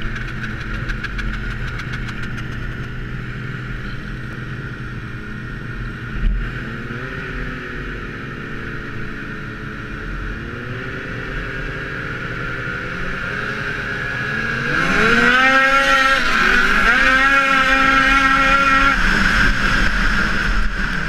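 Ski-Doo snowmobile engines idling on a race start line, with a few small throttle blips and a single knock about six seconds in. About two-thirds of the way through they rev up together in a rising whine as the race starts, and the sleds run at full throttle.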